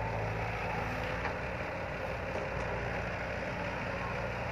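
Diesel engine of a Caterpillar tracked hydraulic excavator running steadily under work as it swings and dumps a bucket of soil into a dump truck.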